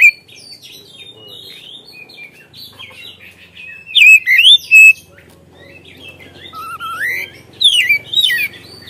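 Oriental magpie-robin singing: varied whistled phrases of quick sweeping notes, with quieter twittering between and loud bursts about four seconds in and again near the end.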